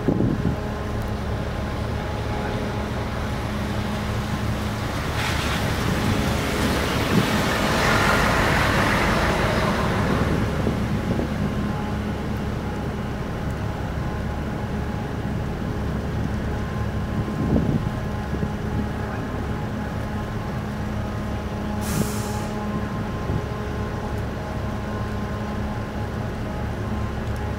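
The car ferry Okesa Maru's engines and machinery droning steadily with a constant low hum while it berths. A swell of rushing noise builds and fades about five to ten seconds in, and a short sharp hiss comes about two-thirds of the way through.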